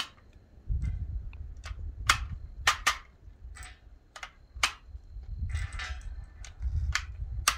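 Loose .223 cartridges being pressed one at a time into an AR-15 magazine by hand. Each round goes in with a sharp click, about nine clicks at uneven spacing, some in quick pairs.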